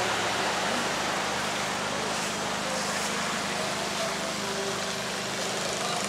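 Steady rush of shallow river water flowing fast across a sandy beach into the sea, an even hiss with no breaks.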